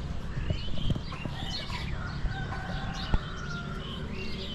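Birds chirping throughout, with chickens clucking and one drawn-out fowl call near the middle. Two sharp knocks stand out, the louder one about three seconds in.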